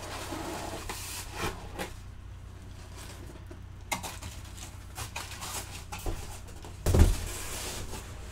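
Cardboard guitar shipping box lid being lifted off and set aside: scattered scrapes and rustles of cardboard, with a low thump about seven seconds in.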